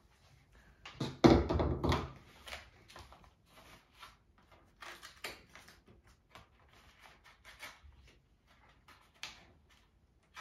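Cardboard advent calendar handled on a table: a thump and rustle about a second in as it is laid down, then scattered light taps, clicks and scrapes of fingers working at the cardboard.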